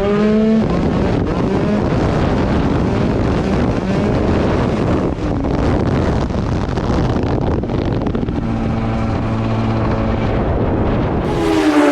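Tuned 94cc Polini Big Evo two-stroke scooter engine running hard while riding, with heavy wind noise on the microphone. It holds a steady pitch for a while, then revs up near the end.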